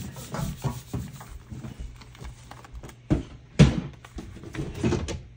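A hand rubbing a sheet of paper flat over a gel printing plate, a series of short rustling strokes. About three seconds in comes louder paper rustling and crackling as the print is peeled up off the plate.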